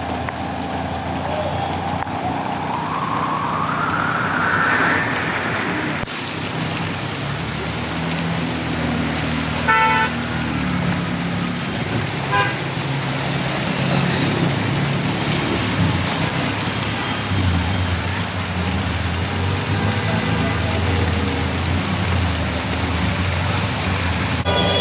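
Motor traffic moving through a flooded street: engines running under a steady hiss of water, with a rising whine over the first five seconds. Two short horn toots come about ten and twelve seconds in.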